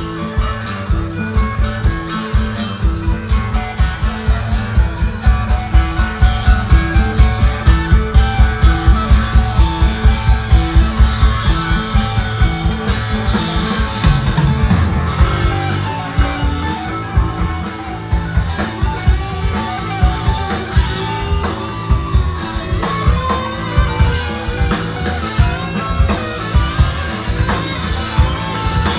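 Live psychedelic rock band playing an instrumental passage: two electric guitars over bass guitar and drum kit. A heavy, steady beat is strongest in the first half.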